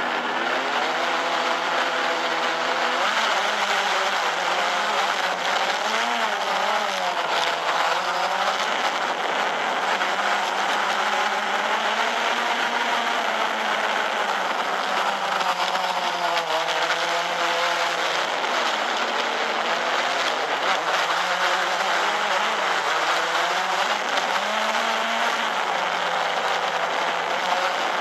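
Quadcopter drone's electric motors and propellers buzzing steadily, heard through the drone's own onboard microphone, their pitch wavering up and down as the motor speeds change.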